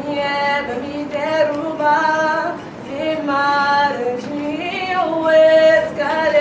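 A woman singing unaccompanied in long held notes, phrase after phrase.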